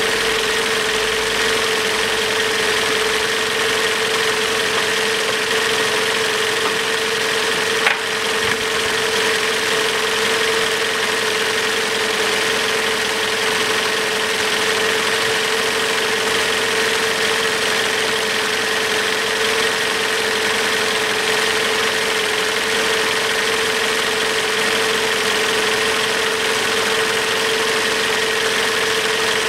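Toyota RAV4's 2.0-litre four-cylinder petrol engine idling steadily while warm, heard from underneath the car, with a steady hum throughout. A single sharp click about eight seconds in.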